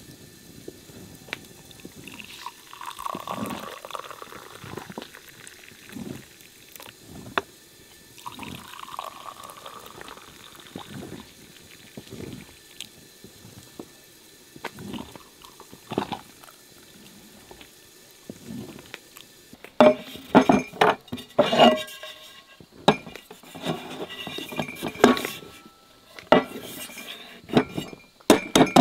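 Kitchen dishes and glassware being handled: scattered knocks, with a short pouring rush twice in the first third. About two-thirds of the way through comes a quick run of loud, ringing clinks of glass and metal.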